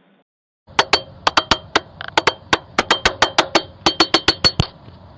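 A fast, uneven series of sharp knocks, about four to six a second, starting about a second in and running on, over a faint steady electronic hum.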